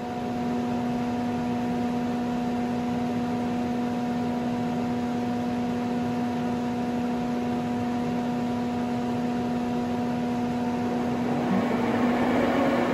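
Union BFT 90 horizontal boring and milling machine running with a steady hum. Near the end a louder, rougher mechanical noise joins in for a second or two.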